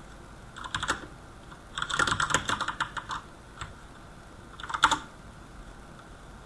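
Typing on a computer keyboard: a short burst of keystrokes, then a longer run of rapid keystrokes about two seconds in, and a last quick burst near the five-second mark.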